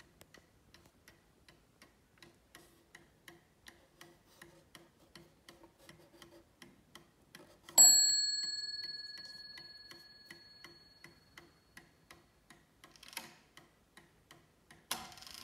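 Antique Sessions oak mantel clock ticking steadily. About halfway through, its hammer strikes the chime once, sounding the half hour; the strike is by far the loudest sound, and its ringing tone fades out over about four seconds. A few light knocks come near the end as the hands are handled.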